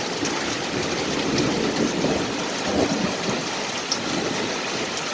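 Heavy rain falling steadily: a dense, even hiss of rain on surfaces.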